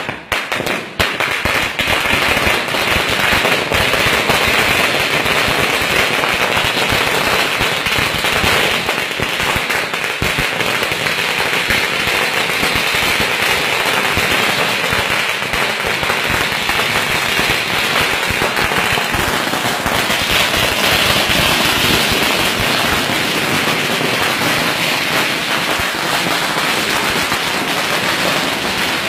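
A long firecracker chain laid along the ground goes off as a dense, unbroken crackle of rapid bangs, starting about a second in and keeping up at a steady, loud level.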